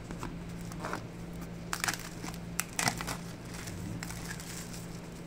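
Clear plastic shrink-wrap being peeled off a smartphone box and crinkling, with a cluster of sharp crackles in the middle.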